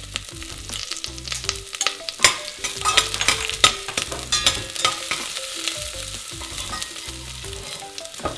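Chopped shallots, garlic and ginger sizzling as they fry in hot oil in a stainless-steel pot. They are stirred with a utensil that clicks and scrapes against the metal, most busily in the middle few seconds.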